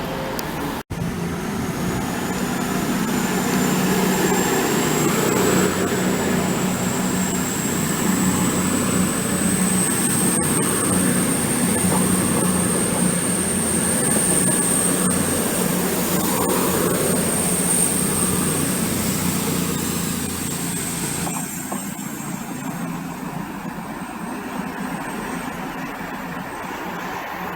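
A train moving through the station: a steady rumble with a high whine that slowly rises in pitch, the noise dropping away about twenty seconds in.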